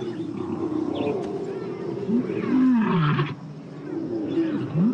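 Lions snarling and growling in a fight, low rasping calls that rise and fall in pitch. The loudest is a long falling growl about two to three seconds in, and another begins near the end.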